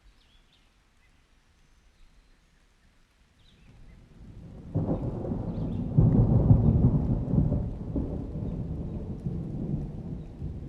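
A long roll of thunder: after a near-quiet start a deep rumble swells in, breaks louder twice, around the middle, then slowly rolls away over steady rain.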